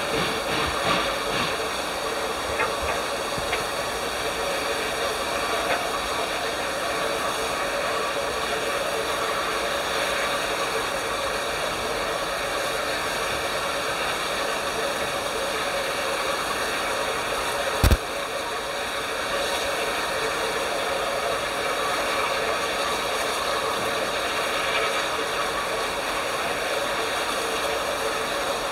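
Bulleid Pacific steam locomotive Braunton standing with its train, giving off a steady hiss of steam. A single sharp knock about eighteen seconds in.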